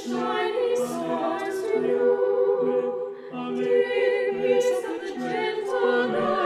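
A small mixed choir of men's and women's voices singing a cappella in sustained chords, with a short break between phrases about three seconds in.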